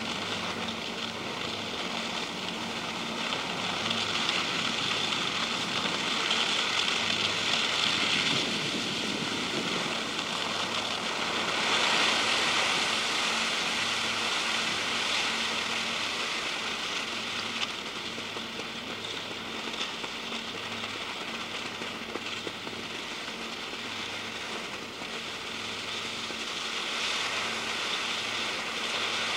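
Steady rushing hiss of skis sliding downhill over snow. It swells louder a few seconds in and again around the middle, then eases in the second half.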